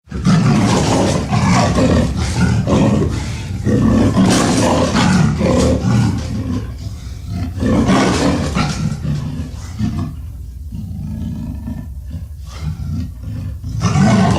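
Sound-designed Tarbosaurus roar, a dinosaur effect built from layered recordings of other sounds. It begins suddenly with loud roars repeated about every four seconds, drops to a lower, quieter rumble a little past the middle, and rises into another roar near the end.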